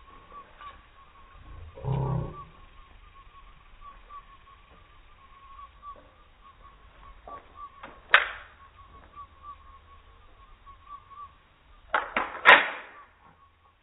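Springfield XDm .40 pistol at the range: a low dull thump about two seconds in, a single sharp crack about eight seconds in, and a quick cluster of sharp cracks near the end as the pistol is raised and fired, the last crack the loudest. A steady warbling high tone runs underneath.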